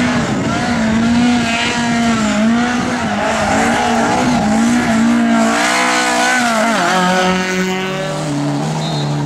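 Rally car engine at high revs, its pitch rising and falling as the driver works the throttle, then dropping sharply about seven seconds in before running on lower.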